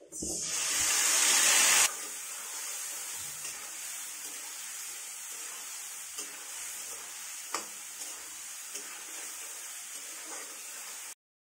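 Wet spice paste poured into hot oil and fried potatoes in a steel kadhai, hitting with a loud sizzle that swells for about two seconds. Then a steadier, quieter frying sizzle as a metal spatula stirs, with a few sharp scrapes of the spatula against the pan.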